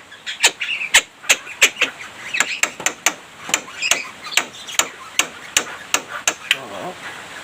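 A run of sharp knocks, about three a second, that stops near the end, with short chirps from a Javan myna (jalak kebo) between them.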